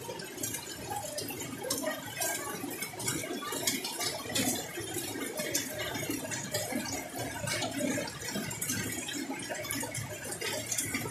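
Heavy tropical rain falling steadily, a dense hiss with many sharp drop hits close by.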